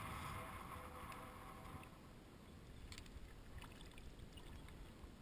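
Shallow water sloshing around a wading angler's legs and hands as a hooked fish is released into it, with a few faint splashes and clicks around three seconds in. A steady hum of unknown source runs through the first two seconds, then stops.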